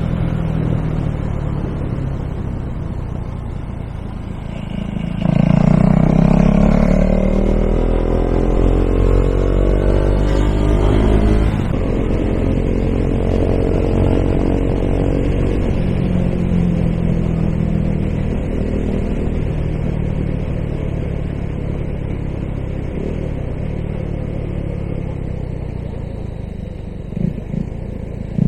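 KTM Duke 390's single-cylinder engine through an aftermarket Akrapovič-style exhaust, being ridden: it gets louder about five seconds in and climbs in pitch as it accelerates, then settles to a steadier run.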